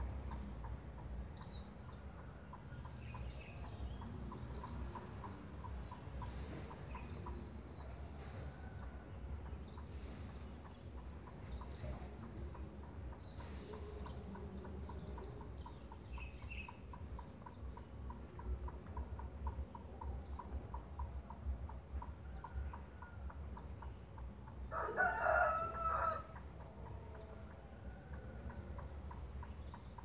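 Outdoor bird chorus of small birds chirping over a steady high-pitched drone, with a rooster crowing once, loudest, near the end.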